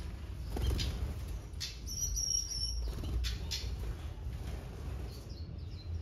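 Small aviary birds chirping, with one clear, high whistled call about two seconds in and a few short chirps near the end, over short rustles of wings as birds fly off the seed tray. A steady low rumble runs underneath.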